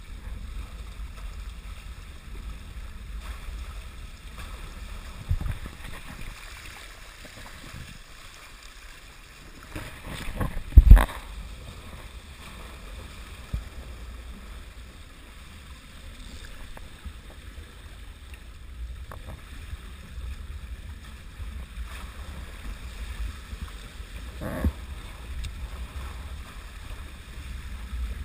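Water rushing along the hulls of a small Hobie catamaran under sail, with wind buffeting the microphone in a steady low rumble. A single loud thump comes about eleven seconds in.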